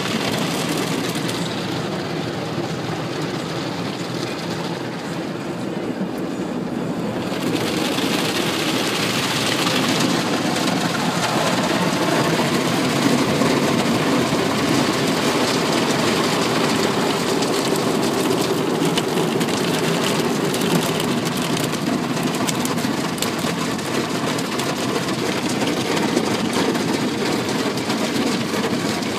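Automatic car wash heard from inside the car: water spraying and the red cloth brushes scrubbing across the body and windows, a steady rushing, rumbling noise that grows louder about seven seconds in.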